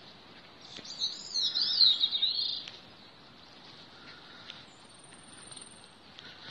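Bicknell's thrush singing one song phrase of rapid, twisting high notes, about two seconds long, starting about a second in. A faint, very high thin note follows about five seconds in.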